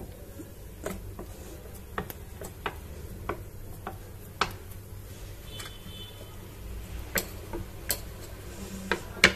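Light, irregular clicks and taps, about one or two a second, with the loudest pair near the end, as hands press thekua dough onto a carved wooden mould on a stone counter. A low steady hum runs beneath.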